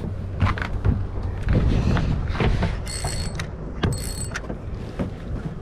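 Fishing reel being cranked while a hooked flounder is fought: a run of mechanical clicking and ratcheting, with two brief rasping bursts about three and four seconds in.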